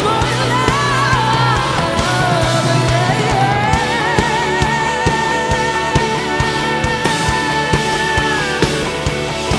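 Live rock band playing with a steady drum beat; a lead melody bends in pitch, then holds one long note for about five seconds before letting go near the end.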